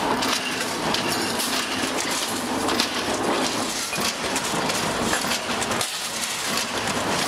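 Steady clattering din of sheet-metal working machinery in a factory, full of rattles and knocks, with one sharper knock about three seconds in.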